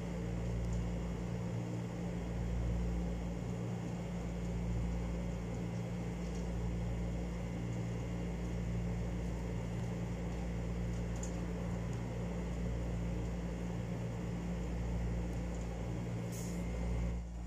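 Steady low machine hum, with a few faint clicks from small metal reel parts being handled.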